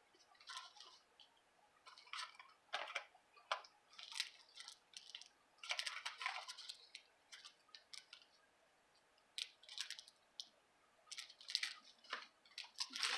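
Scattered small rustles and light clicks of paper and craft supplies being handled on a work table, coming in short irregular bursts with brief pauses.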